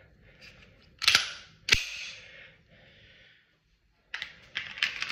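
Sig Sauer P365 pistol being handled: two sharp metallic clacks about a second in, half a second apart, then a cluster of lighter clicks near the end.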